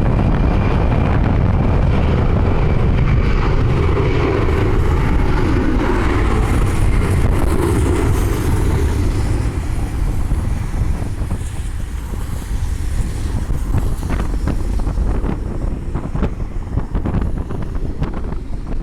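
Jet airliner's engines rumbling as it passes, strongest in the first half and easing off in the second, with gusty wind buffeting the microphone.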